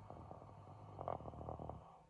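A man snoring in his sleep: one long snore with a rapid fluttering rattle over a low rumble, ending near the end.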